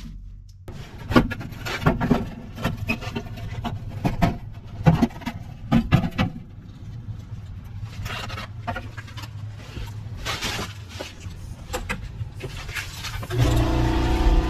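Irregular metallic clanks, knocks and scraping as hand tools work the rusted exhaust bolts and muffler of a Chevy Trailblazer. About a second before the end a loud, steady mechanical drone starts suddenly.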